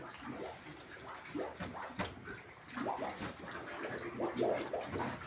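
Pigs grunting and giving short squeals, many brief calls overlapping.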